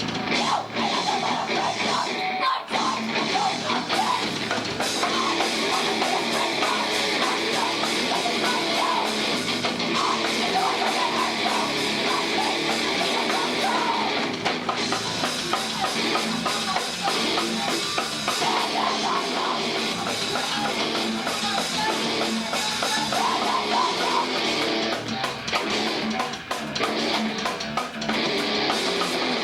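Rock band playing live: heavy electric guitars and a drum kit.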